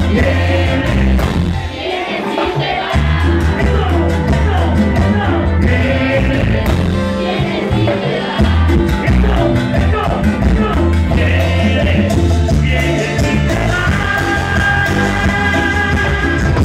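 A live band playing loud Latin dance music through a stage PA, with singing over a pulsing bass line. Long held instrumental notes come in near the end.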